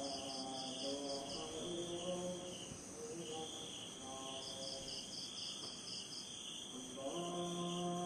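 Insects trilling in fast pulsing bursts over a steady high whine, with distant chanting in long held notes underneath that fades about three seconds in and returns louder near the end.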